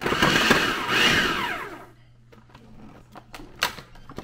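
Food processor motor run in a short burst of about a second and a half to cut frozen butter into the flour mixture, then winding down with a falling whine. A few light knocks follow.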